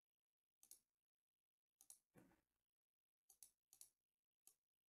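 Near silence broken by a handful of faint, short clicks and rustles at irregular intervals.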